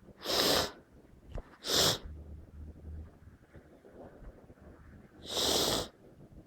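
Three intense, unstifled human sneezes from someone who thinks they have caught a bad cold: two close together within the first two seconds, then a longer one about five seconds in.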